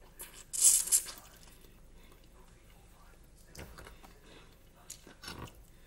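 Mouth sounds of eating stewed chicken feet by hand: a loud slurp about half a second in, then a few quieter chewing and sucking sounds in the middle and near the end.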